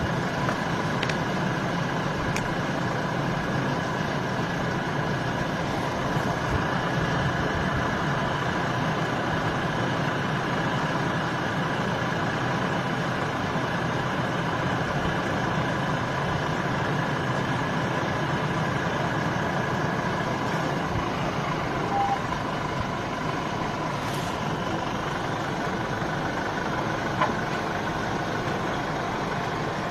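Vehicle engines idling, a steady even hum with no change in pitch.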